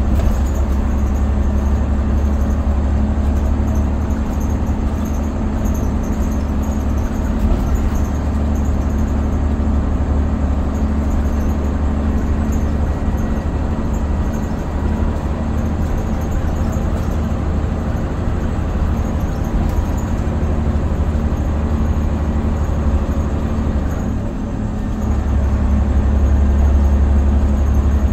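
Scania OmniCity single-deck bus heard from inside the passenger saloon while on the move: a steady low engine and drivetrain drone with road noise. The drone eases briefly near the end, then grows louder.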